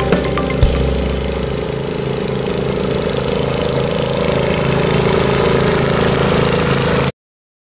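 Riding lawn mower's air-cooled four-stroke Briggs & Stratton 344 cc engine running steadily as the mower drives across the lawn, cutting off abruptly about seven seconds in. A music beat fades out within the first second.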